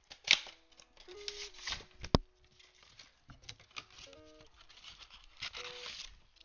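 Trading-card box being torn open and handled: bursts of tearing and rustling, with two sharp snaps, one just after the start and one about two seconds in. Faint guitar music plays underneath.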